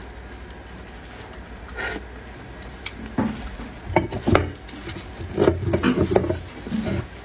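Close-up eating sounds of beef bone marrow: wet sucking and chewing noises in irregular bursts, with a few sharp clicks of bone or utensils against a dish.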